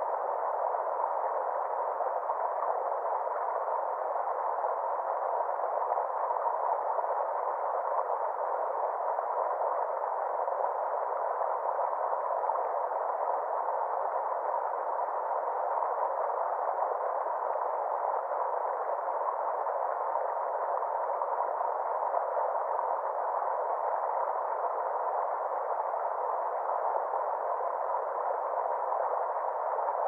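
Small forest stream rushing steadily over rocks, a constant muffled hiss with nothing deep or sharp in it.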